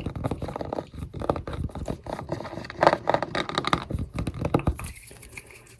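Close-up tapping and scratching on objects: dense, irregular clicks and scrapes that ease off near the end.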